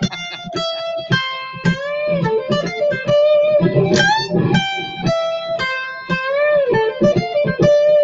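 Electric guitar playing a short two-string lead lick over and over, a phrasing exercise: picked notes, several of them bent up and released.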